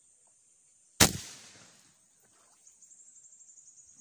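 A single airgun shot about a second in, a sharp crack that dies away quickly. Near the end there is a faint, fast, high-pitched ticking.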